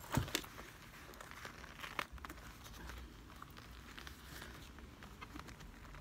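Leather jacket being handled and shifted on a sewing table: soft rustling, with sharp clicks right at the start and about two seconds in.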